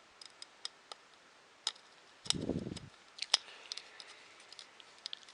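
Small plastic and metal 3D printer kit parts being handled and fitted by hand: scattered light clicks and taps, with a short louder rattle about two and a half seconds in.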